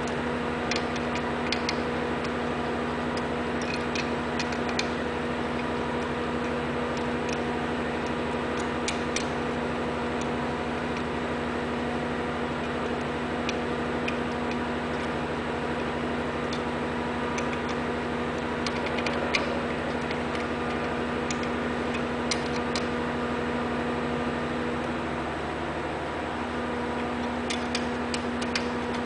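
Steady machine hum, with scattered light metallic clicks and ticks as the screws holding the printer's printhead are worked loose with a tool.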